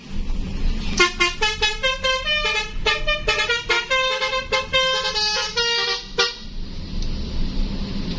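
Basuri 'telolet' musical bus horn playing a fast tune of short, changing notes. It starts about a second in and stops abruptly around six seconds, over a low steady rumble.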